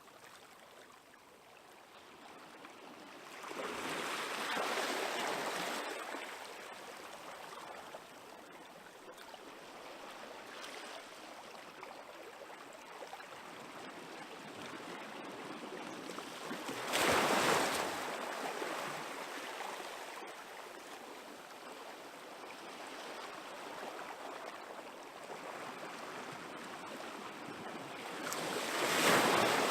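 Small waves on a calm sea washing onto the shore. Three louder waves break about four seconds in, around seventeen seconds, and near the end, each swelling and fading over a second or two.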